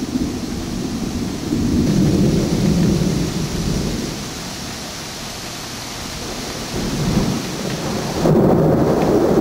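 Wind buffeting the camera's microphone: a loud, uneven low rumble that swells and fades, over a steady hiss.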